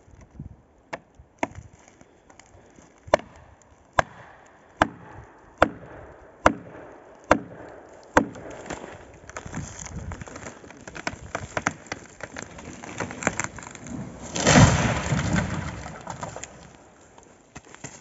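About nine sharp blows, a little under a second apart, driving a felling wedge into the cut of a dead standing pine. The trunk then cracks and splinters for several seconds as the hinge gives way, and the tree crashes to the ground late on, the loudest sound.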